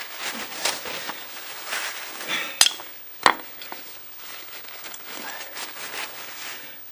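Metal tools clinking and clattering as they are handled and repositioned, with two sharp metal knocks at about two and a half and three seconds in.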